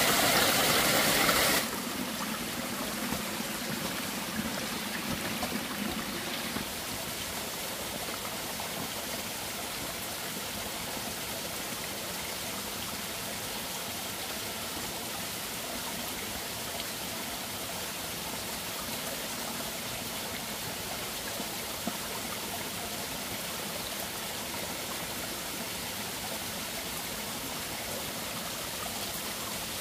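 Water running in a stream, a steady even rush; it is louder for the first second and a half.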